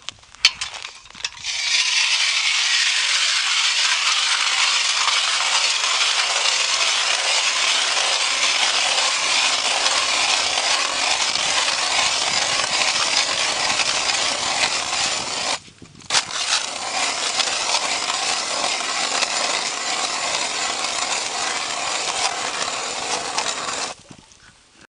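8-inch Fin Bore hand ice auger cranked down through lake ice, its blades scraping and chipping the ice in a steady, gritty rasp. The cutting stops briefly about two-thirds through, resumes with a knock, and stops near the end.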